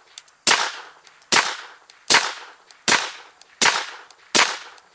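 Suppressed 9mm Beretta APX A1 Tactical pistol fired through a Rugged Obsidian 45 suppressor: six shots at a steady pace, about one every three-quarters of a second, each a sharp report with a short fading tail.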